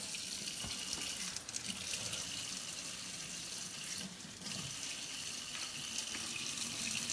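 Tap water running steadily from a kitchen faucet into a stainless steel sink, the stream splashing onto the sink's wire rack.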